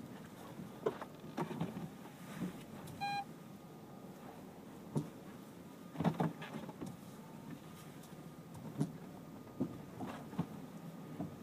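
Car suspension knocking and clunking irregularly, a string of sharp knocks over a steady low road rumble: an abnormal noise from the suspension. A short beep sounds about three seconds in.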